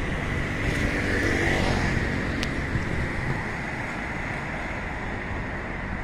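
Steady hum of road traffic, a little louder in the first couple of seconds and then easing off.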